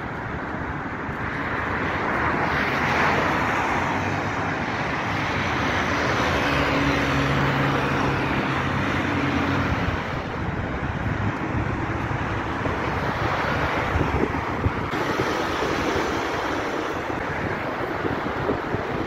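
Street traffic noise of cars passing, with a vehicle engine's steady hum for a few seconds in the middle.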